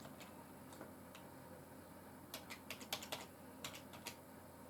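Faint computer keyboard typing: scattered key clicks, then a quick run of them in the second half.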